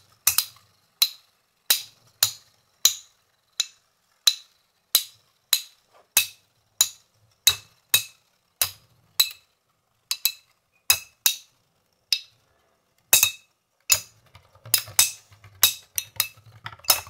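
Two metal-wheel Beyblade spinning tops clashing again and again: sharp, ringing metal clinks about every two-thirds of a second, coming faster and closer together near the end.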